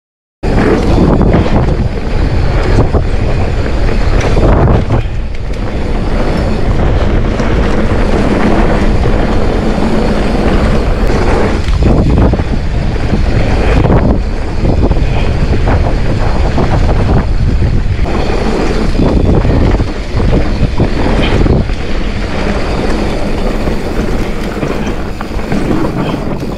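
Mountain bike riding down a dirt trail: wind buffeting the camera microphone over the rumble of the tyres, with frequent irregular knocks and rattles from the bike over bumps.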